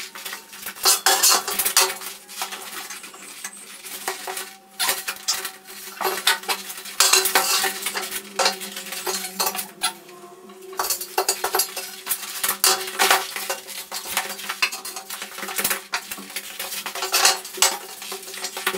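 Heavy rectangular steel box-section tubes clanking and scraping against one another and against a welded steel frame as they are set down and shifted, with repeated sharp metallic knocks.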